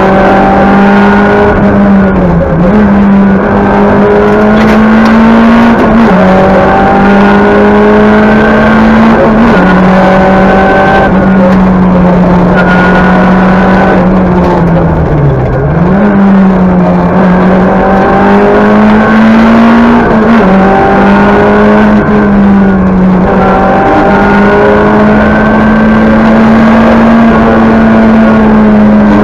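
Talbot Samba Group B rally car heard from inside the cockpit at racing speed. Its four-cylinder engine revs up again and again through the gears, the pitch climbing and falling back at each shift over a steady drone, with a longer lift off the throttle about halfway through.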